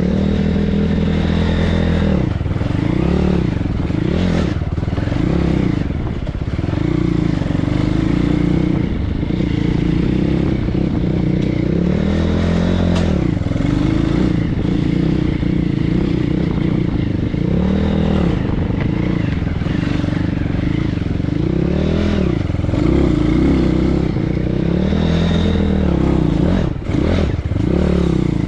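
BSE PH 150 pit bike's 150 cc engine running under way off-road, the revs rising and falling again and again as the throttle is opened and closed.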